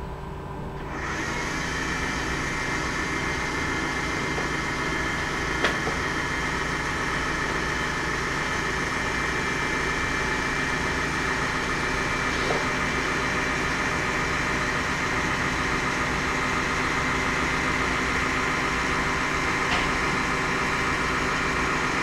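Electric linear actuator running steadily, a motor whine over a low hum, as it drives the safe's panel along its side rails. It starts about a second in.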